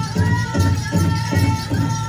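Powwow drum song: a large drum struck in a steady beat by a drum group, about two to three beats a second, with the singers' high held voices above it.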